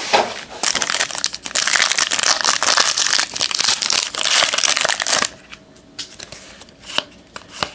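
Plastic wrapper of a trading-card pack crinkling loudly as it is torn open and handled for about five seconds, then quieter handling with a few light clicks.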